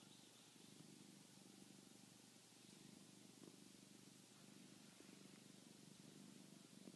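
Domestic cat purring steadily and faintly.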